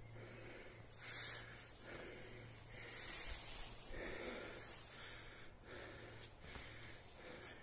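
A person breathing close to the microphone, several soft breaths about a second long each, over a faint steady low hum.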